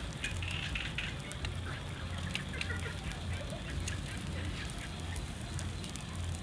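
Whole fish grilling on skewers over a charcoal brazier, crackling and sizzling with frequent small pops.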